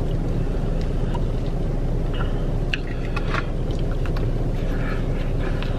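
Steady low rumble of a car idling, heard inside the cabin, with a few faint short clicks from someone eating a slider burger.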